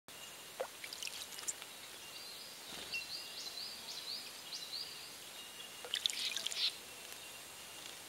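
A male fairy-wren bathing in a shallow terracotta bird bath: quick bursts of splashing and wing-flicking in the water, the loudest and longest about six seconds in. In the background a small bird gives a run of short rising high notes, about three a second, between about three and five seconds in.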